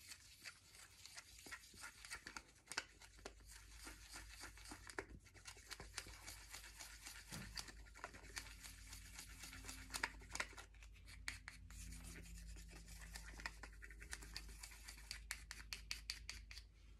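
Thin wooden stick stirring green mica and oil in a small plastic cup: faint, rapid scraping and ticking against the cup.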